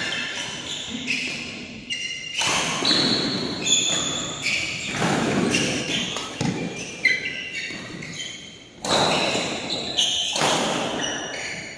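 Badminton rally: several sharp racket strikes on the shuttlecock, a couple of seconds apart, each echoing in a large hall, with short high squeaks of players' shoes on the court mat between them.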